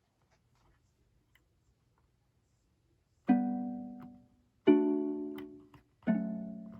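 Akai MPK Mini Play MK3's built-in sounds playing a plucked-string, ukulele-like voice: after about three seconds of near quiet, three notes or chords are struck about a second and a half apart, each dying away.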